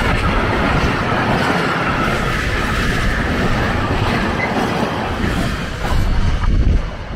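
Freight train of mostly empty intermodal flat wagons rolling past at speed: a steady rumble of wheels on rail with a faint high wheel squeal through the first half. Near the end, as the last wagons go by, wind buffets the microphone.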